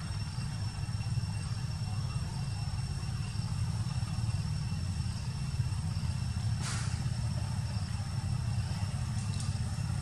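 Steady low rumble of outdoor background noise, with a few thin, steady high tones above it and a brief hiss about two thirds of the way in.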